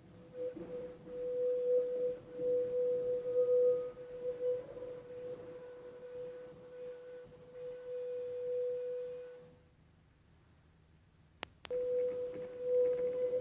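Steady metallic squeal of steel on rail from Dresden's rail-grinding works tram, one high tone swelling and fading. It breaks off for a couple of seconds near the end, then a sharp click and the squeal resumes.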